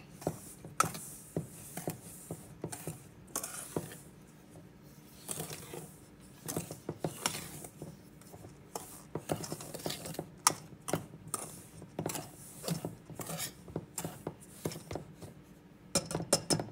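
Wire balloon whisk stirring dry flour and cornmeal in a stainless steel bowl: irregular scraping strokes and light clicks of the wires against the metal, with a quick run of clicks near the end.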